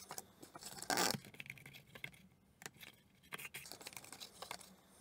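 Cardboard being handled: light scrapes and rubs as the folded case is pressed and slid across a cutting mat, with a louder scrape about a second in and a quiet spell in the middle.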